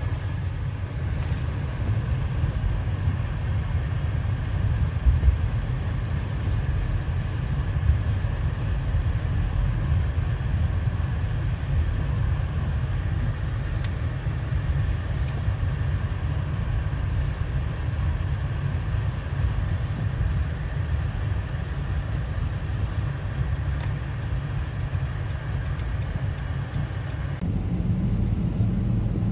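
Steady low rumble of a car driving on a snow-covered road, heard from inside the cabin, with a faint steady whine over it. The sound changes abruptly near the end.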